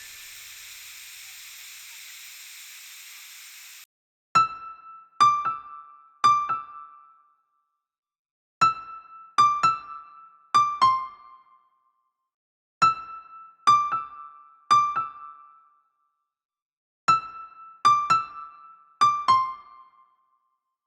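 Outro music: short, bell-like electric piano notes played in four phrases of three to five notes, each note fading quickly, with pauses between the phrases. Before the notes begin, a steady hiss cuts off about four seconds in.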